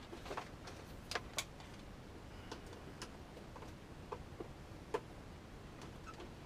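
Small separate clicks and ticks from handling a handheld rotary tool at its nose end, about a dozen scattered irregularly through several seconds.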